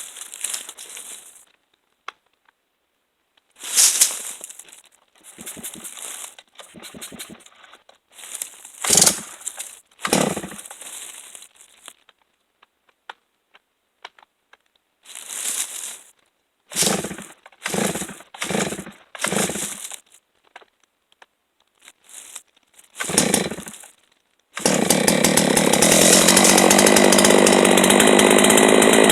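Two-stroke chainsaw being cold-started: a series of short pull-cord pulls, some several in quick succession, then about three-quarters of the way through the engine catches and runs loud and steady.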